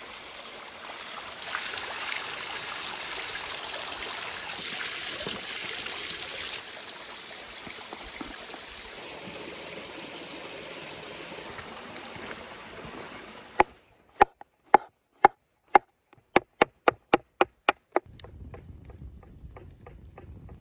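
Spring water running and splashing steadily over rock and a basket of mushrooms being rinsed in it, louder for a few seconds near the start. About two-thirds of the way through it cuts off abruptly, and a run of sharp, dry knocks follows, quickening to about five a second. Then comes the faint crackle of a wood fire.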